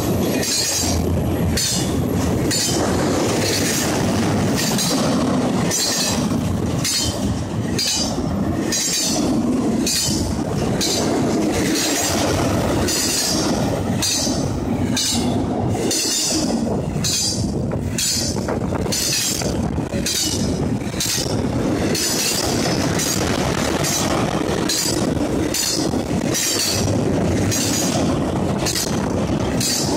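Double-stack intermodal freight cars rolling past at close range: a loud, steady rumble and clatter of steel wheels on rail. A high-pitched metallic squeal pulses about once or twice a second as the wheel sets go by.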